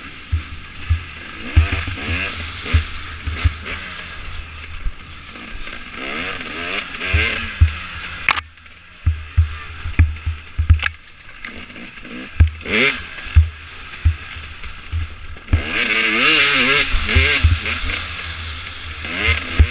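Dirt bike engine revving up and down as it is ridden hard over a rough woods trail, heard close from a camera on the bike, with frequent low thumps and knocks from the bumps. The engine drops off briefly a little before halfway and pulls hardest about three-quarters of the way through.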